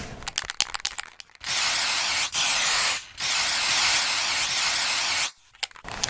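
A quick run of clicks, then loud steady hissing in two long stretches broken by a short gap about three seconds in, then a few more clicks.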